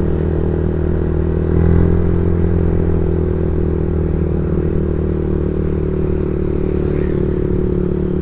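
Yamaha Vixion's single-cylinder four-stroke engine running steadily while riding, heard from the rider's seat together with road and wind noise. It swells briefly about one and a half seconds in.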